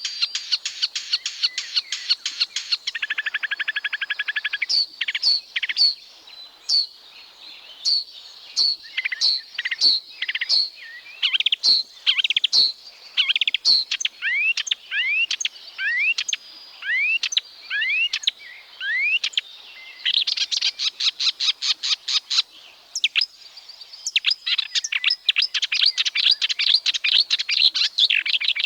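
Marsh warbler singing its fast, varied song: rapid trills and buzzy runs, sharp repeated notes, and a series of rising whistled sweeps through the middle.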